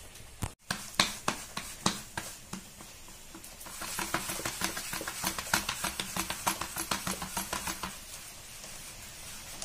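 Hands patting finger-millet (nachni) dough flat on a flour-dusted steel plate to shape a bhakri: a few separate pats, then a quick, even run of soft slaps, about five a second, that stops a little before the end.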